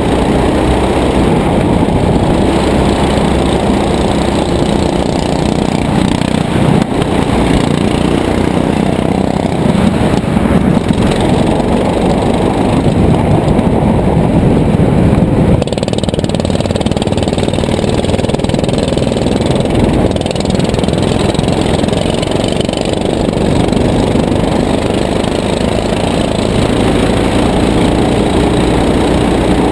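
Go-kart engine running hard under load, heard loud and close from a camera mounted on the kart, with a brief change in the sound about fifteen seconds in.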